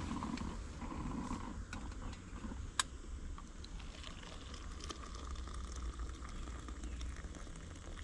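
Small canister gas stove's burner running steadily, a sharp metal clink about three seconds in as the coffee pot is lifted off it, then coffee poured from the pot into a mug.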